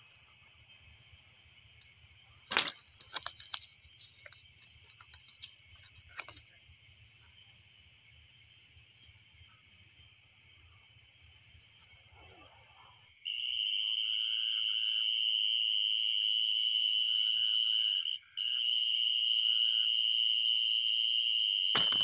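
Night insects, crickets, chirring steadily and high-pitched, with a few brief knocks and rustles in the first few seconds. About 13 seconds in, a louder steady insect trill takes over, dropping out for a moment about 18 seconds in.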